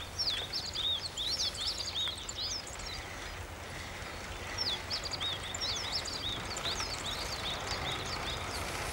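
Small birds chirping: many quick, high chirps in clusters over a steady low rumble of outdoor background noise, with a short lull in the chirping about halfway through.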